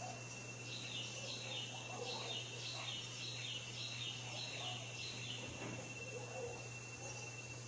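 A songbird singing a quick series of about eight short, repeated notes, each sliding downward, for a few seconds near the start. Under it run a steady thin high tone and a low hum.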